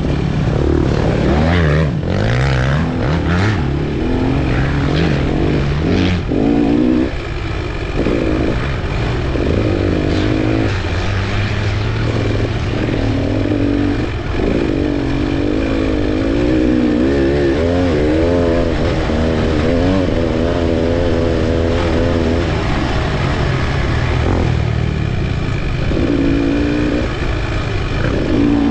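Dirt bike engine revving up and falling back over and over as the rider works the throttle and shifts gears, heard close up from the handlebars.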